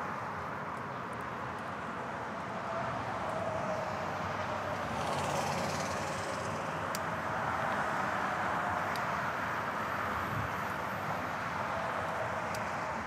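Steady city traffic and road noise heard from a moving bicycle, with a brief hiss about five seconds in and a few faint clicks.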